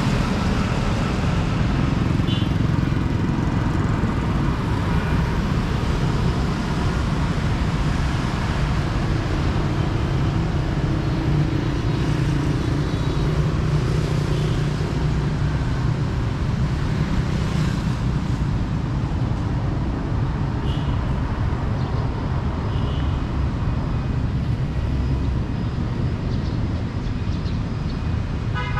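Steady city street traffic: motorbikes and cars running past in a continuous stream.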